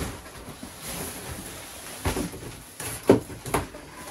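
Cardboard shipping box being handled and cut open with a knife: a few short scrapes and knocks, the sharpest about three seconds in.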